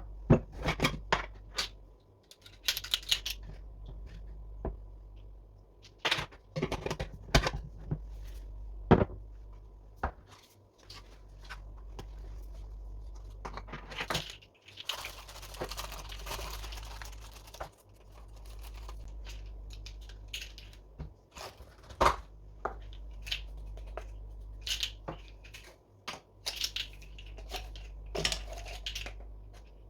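Kitchen handling sounds while baking: scattered clicks and knocks of utensils and containers, with a few seconds of rustling about halfway through.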